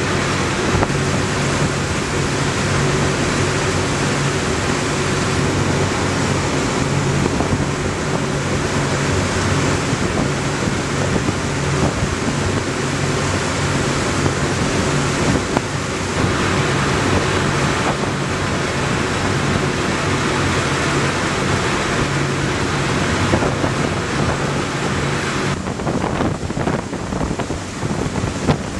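Ferry engines droning steadily beneath wind buffeting the microphone and the rush of water from the wake. About 26 seconds in the engine hum drops away, leaving gusty wind and churning water.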